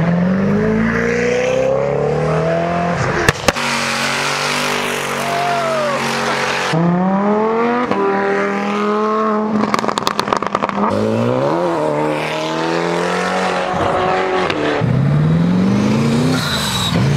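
High-performance cars accelerate hard past one after another, each engine revving up through its gears in rising sweeps. There is a quick string of sharp pops about three seconds in and again around ten seconds.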